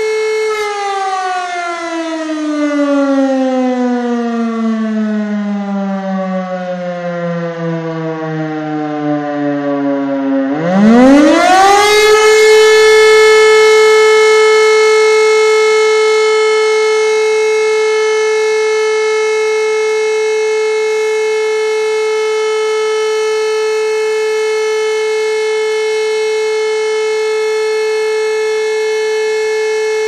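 MEZ H1/B2 rotary siren sounding the Czech fire alarm signal: a steady tone cuts out about half a second in and winds down in pitch for about ten seconds, then spins back up to full pitch in about a second and a half and holds steady. The wind-down is the 10-second break between the two 25-second blasts of the fire-brigade call-out signal.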